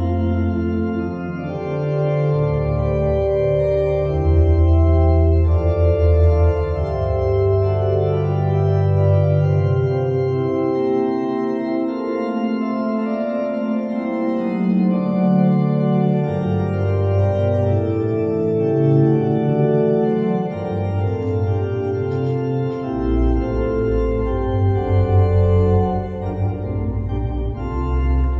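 Organ playing slow, held chords over a deep bass line that moves every few seconds.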